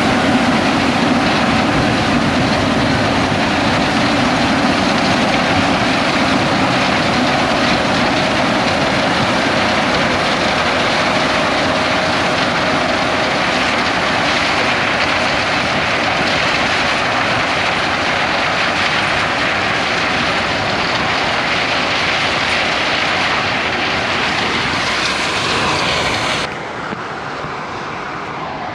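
A John Deere X9 1100 combine harvesting corn makes a loud, steady machinery noise. Near the end, the sound drops abruptly and becomes duller.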